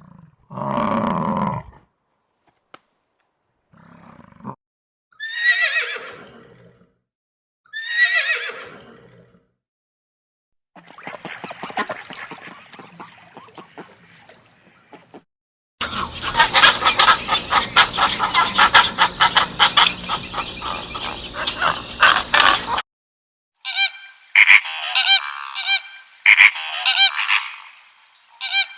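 A series of different animal calls with short pauses between them: two falling cries early on, a dense run of rapid calls lasting several seconds in the middle, and a cluster of shorter calls near the end.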